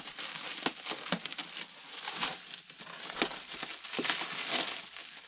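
Plastic bubble wrap and packing tape crinkling as they are cut and pulled away by hand, with scattered sharp crackles.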